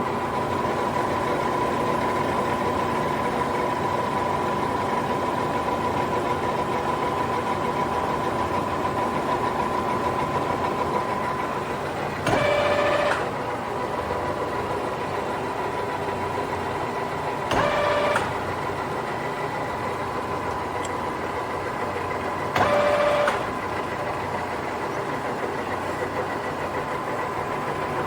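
Lion C13MB engine lathe running, a steady mechanical hum with a thin high whine that fades out about halfway through and comes back near the end. Three short, louder whining bursts, each under a second, about five seconds apart.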